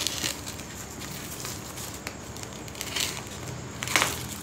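Black plastic courier wrapping being torn open by hand, crinkling and crackling, with louder crinkles about three and four seconds in.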